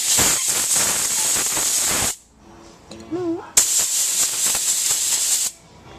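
Compressed-air blow gun blowing through a small brass carburetor jet to clear it: two bursts of hissing air about two seconds each, with a short pause between.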